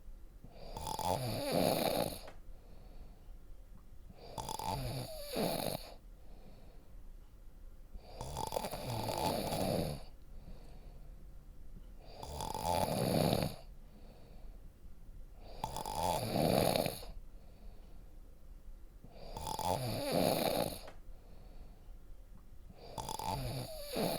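A person snoring deeply and loudly, with a steady breathing rhythm: seven snores about four seconds apart, each lasting a little over a second, with quieter breaths between them.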